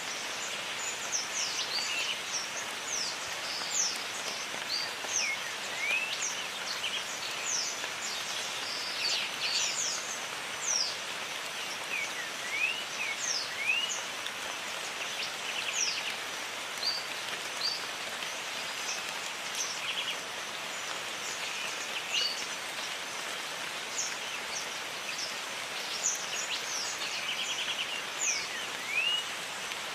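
Steady rain falling in jungle, an even hiss throughout, with many birds calling over it: quick high whistled notes sweeping up and down, and now and then short buzzy trills.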